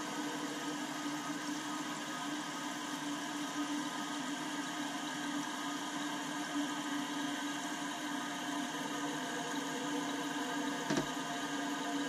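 Fluidmaster 400CR toilet fill valve running, water hissing into the tank as it refills, a steady hiss with a low hum. A brief knock about eleven seconds in.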